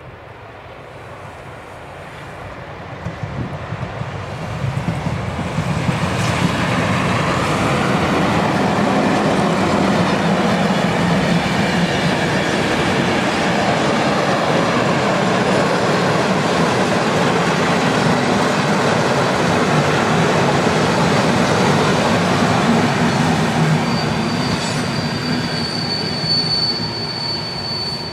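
Intercity passenger train, headed by an EP07 electric and a class 754 diesel locomotive, passing at speed: a rumble that builds over the first few seconds, then a long, steady run of wheel-on-rail noise as the coaches go by. Near the end a thin, steady high squeal joins in as the last coach passes, and the noise starts to fade.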